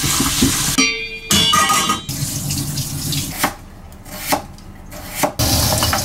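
Kitchen sounds in quick succession: water running from a tap, then a few sharp knife chops through potatoes on a cutting board.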